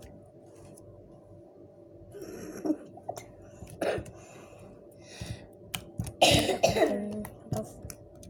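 A person coughing and clearing their throat several times, the loudest bout about six seconds in, with a few small clicks of handling in between.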